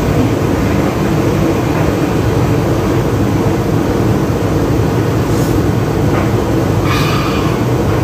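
A loud, steady, low mechanical rumble with no breaks, with a short higher-pitched sound about seven seconds in.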